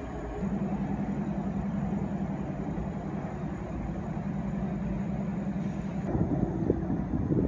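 Freight train of covered hopper cars rolling slowly past, the wheels on the rails giving a steady low hum and rumble. About six seconds in, sharper knocks and rattles join in.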